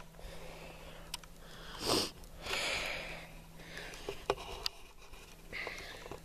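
A person sniffing and breathing close to the microphone in a few short breaths, with several small handling clicks.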